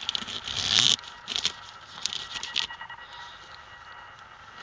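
Knife blade slitting open a plastic courier mailer bag: a loud ripping scrape in the first second, then several short crinkles and rustles of the plastic as the cut is pulled open, dying away after about three seconds.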